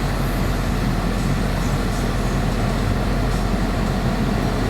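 Dodge Charger SRT 6.4's 6.4-litre HEMI V8 idling with the climate-control blower running, a steady rumble and rush of air. No clicking comes from behind the dash: the new blend-door actuator is working.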